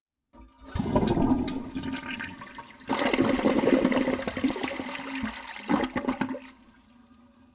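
Water rushing and sloshing in a plastic basin, in uneven surges with a dip about two seconds in, then fading out near the end.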